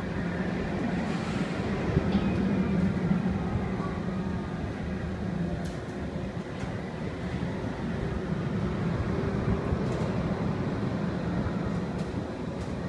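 Steady low mechanical hum and rumble of the Sky Cabin ride's machinery as the enclosed cabin rotates around its tower, with a few faint clicks.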